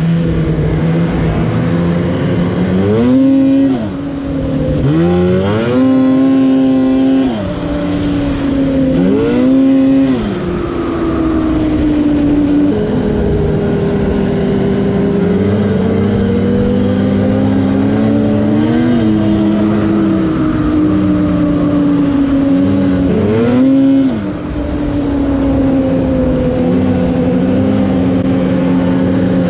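Polaris Switchback Assault snowmobile's two-stroke engine running at trail speed. Its pitch rises and falls about four times as the throttle is squeezed and let off, and it holds a steady note while cruising in between.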